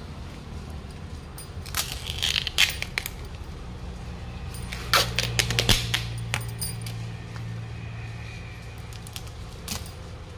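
Handling noises as a car tyre is turned over by hand: two clusters of light metallic clinks and knocks, one about two seconds in and one about five seconds in, over a steady low hum.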